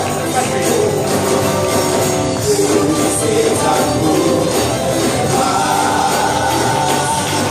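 Church worship music with a tambourine and singing, playing steadily.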